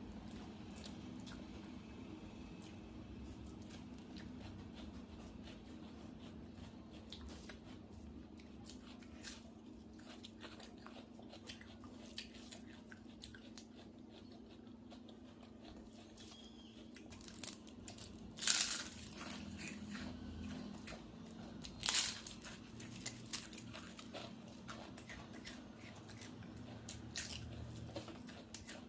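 Close-up eating sounds: chewing with small clicks and crunchy bites, two loud crunches about two-thirds of the way through. A steady low hum runs underneath.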